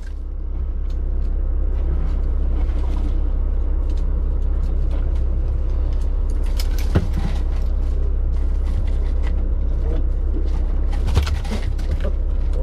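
Steady low drone of a charter fishing boat's engine running, with a couple of short knocks, one about seven seconds in and one near the end.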